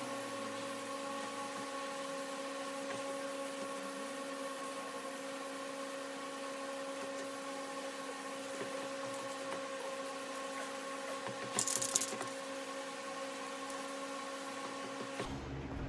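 Hiss of an aerosol can of VHT vinyl dye being sprayed, over the steady hum of a window exhaust fan. A short, louder burst of spray hiss comes about twelve seconds in.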